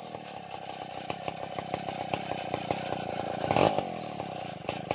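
Two-stroke chainsaw idling after coming off the throttle, its firing uneven. There is a brief louder burst about three and a half seconds in, and the engine starts winding down at the very end.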